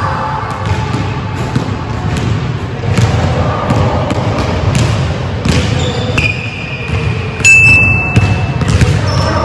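A basketball being dribbled on a hardwood gym floor, repeated bounces, with a loud, high sneaker squeak on the court about three-quarters of the way in.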